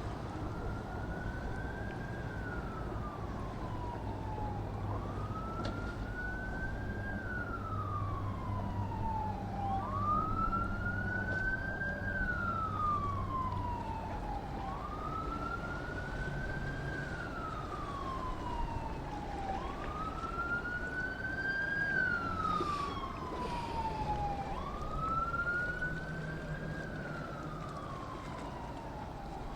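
Emergency siren wailing in slow cycles, each rising quickly and then falling away over a few seconds, about six times, over a low engine hum.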